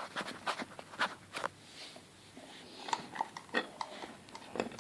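Scattered metal clicks and knocks as a heavy padlock is handled and clamped into a vice, a few with a short ring.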